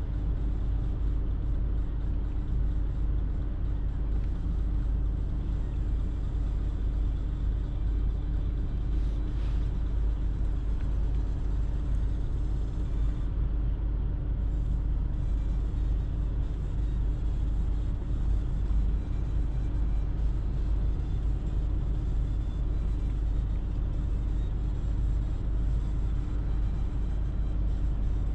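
Steady low rumble of idling engines and city traffic, heard from inside a stopped car's cabin, with a constant low hum.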